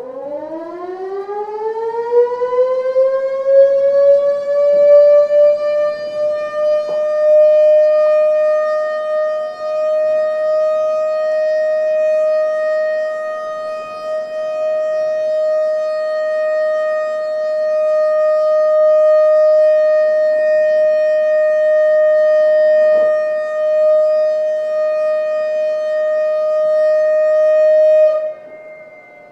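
Motor-driven outdoor siren winding up from a low pitch over about six seconds, then holding one steady tone with its loudness wavering. Near the end it drops off sharply and the pitch begins to fall as it winds down.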